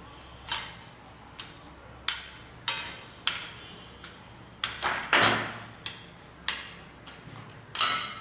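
Quilt fabric being handled and folded: a run of short rustles and swishes at irregular intervals, with a longer one about five seconds in.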